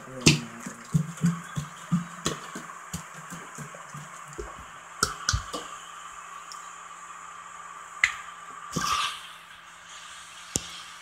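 Airliner cabin during the takeoff roll and liftoff: the wheels thump over the runway several times a second, the thumps dying away after about three seconds as the plane leaves the ground, over a steady jet engine hum. A single sharp thump comes about eight seconds in.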